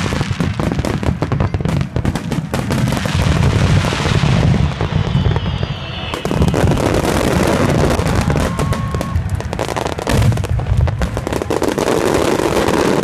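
Fireworks finale: a continuous barrage of aerial shells bursting in rapid succession, deep booms mixed with crackling, with a few short whistling tones.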